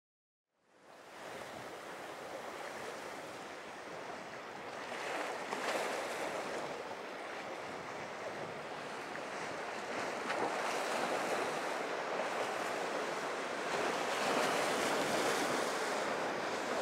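Ocean surf and rushing water, with wind buffeting the microphone. The sound fades in about a second in, then swells and eases every few seconds.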